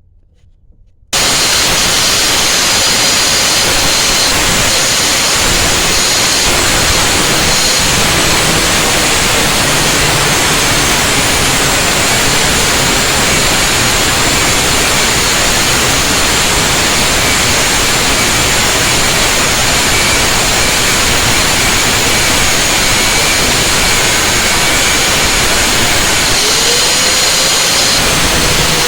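Harbor Freight Warrior 4.5-inch angle grinder with a 1/16-inch cut-off disc cutting metal, a loud, steady hiss that starts abruptly about a second in and holds at an even level.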